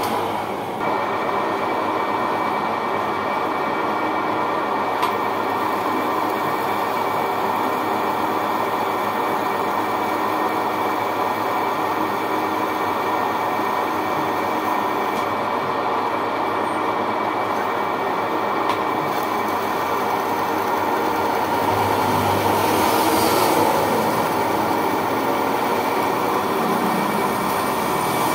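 Manual lathe running steadily while a cutting tool bores the inside of a spinning nylon bearing housing; a dense mechanical drone with a thin steady whine over it, swelling briefly about three-quarters of the way through.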